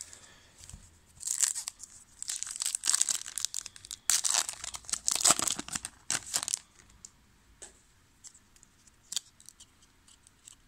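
Foil wrapper of a 2000 Topps Season Opener football card pack being torn open and crinkled, in repeated crackly bursts over about five seconds. After that, only a few light ticks as the cards are handled.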